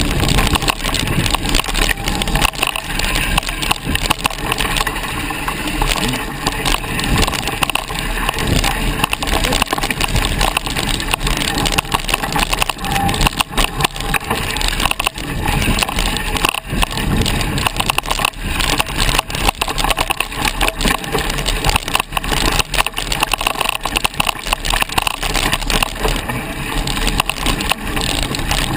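Mountain bike ridden fast over a dirt forest trail: tyres on the dirt and a constant clattering and knocking of the bike over roots and bumps, loud and unbroken.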